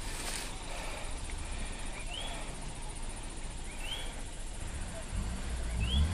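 A bird repeating a short, high, rising-then-falling call three times, evenly spaced less than two seconds apart, over steady background hiss. Near the end a low vehicle engine rumble comes in.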